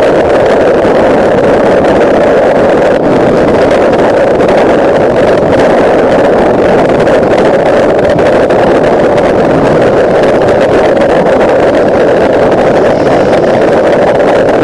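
Loud, steady rush of wind and road noise on a Bajaj Dominar 400 motorcycle riding at highway speed, with no clear engine note standing out.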